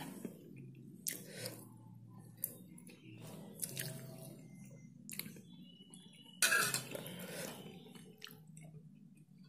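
A person quietly chewing a mouthful of stir-fried melinjo leaves, with a few small clicks and a louder burst of noise about six and a half seconds in, over a faint low hum.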